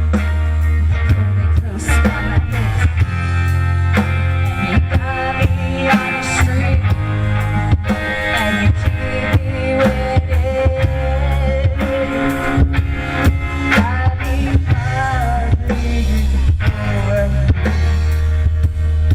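A rock band playing live: a drum kit keeps a steady beat over a heavy bass, with singing.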